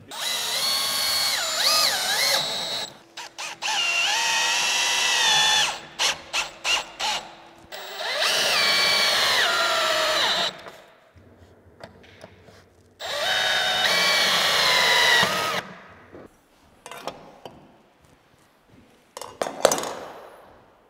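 Cordless drill-driver, a Milwaukee M12 installation driver, driving screws into pocket holes in a wooden handrail, in four runs of a few seconds each. The motor whine rises and dips in pitch during each run, with short clicks and knocks between runs and a sharp knock near the end.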